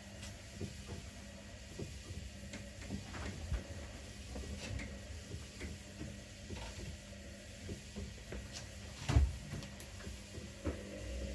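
Front-loading washing machines running a wash cycle: a steady motor hum with irregular soft knocks and thuds from the tumbling drum, one louder thump about nine seconds in. A further hum comes in near the end.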